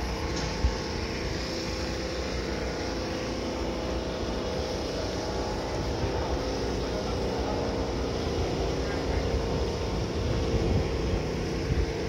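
Steady low rumble of outdoor ambience with no distinct events, apart from one short knock just under a second in.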